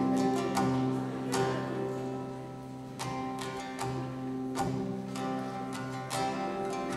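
Acoustic guitar strumming chords that ring on between strokes, with the chord changing a few times.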